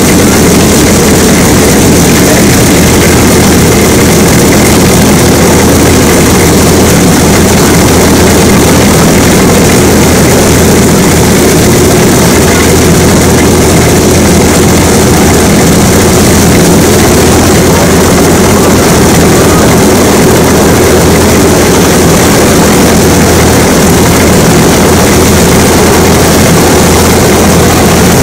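Antonov An-2's Shvetsov ASh-62IR nine-cylinder radial engine running steadily with its propeller turning, very loud and close.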